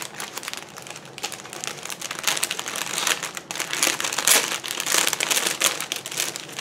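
Clear plastic packaging crinkling and crackling as it is handled and pulled open, getting louder from about two seconds in.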